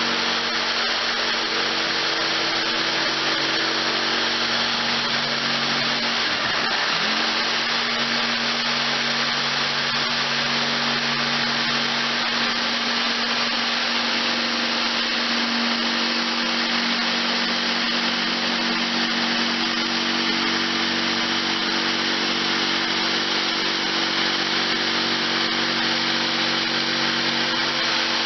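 Electric power tool running continuously under load, with a steady motor hum that sags briefly about six seconds in and then picks up again.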